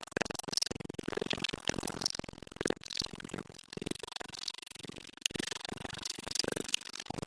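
A man's voice speaking continuously in a hall.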